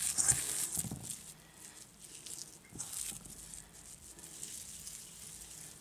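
Raw ground-meat meatloaf mixture squishing in bare hands as it is scooped from a stainless steel mixing bowl and pressed into a metal muffin tin, with a few soft thumps.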